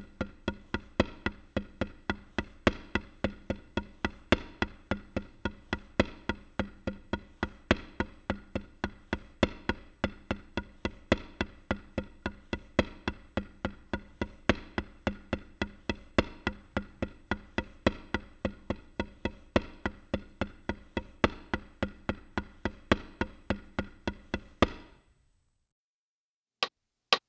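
Drumsticks striking a rubber practice pad in the single paradiddle-diddle sticking (R L R R L L), in even, steady strokes. The pattern stops about 25 seconds in, and a few sharp clicks follow near the end.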